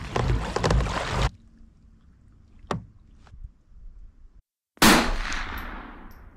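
About a second of loud rushing noise, then a couple of sharp clicks, then a sudden loud bang out of dead silence that fades away over about a second and a half.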